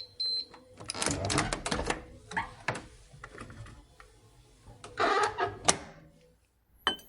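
Kitchen sound effects of a snack being prepared: two short electronic beeps at the start, then rustling and clattering of packaging and handling, with scattered clicks and a short click-and-tone near the end.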